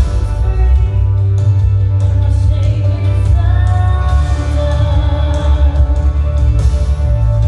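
Worship song with singing over instrumental backing and a heavy bass.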